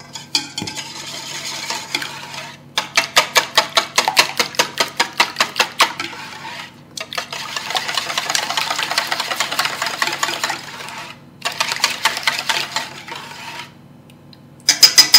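A pepper mill grinds over the bowl for the first couple of seconds. Then a wire whisk beats a liquid egg, milk and cream mixture in a stainless steel bowl, in fast rhythmic strokes at about five a second that turn into steadier whisking. A few loud clinks of metal on metal come near the end.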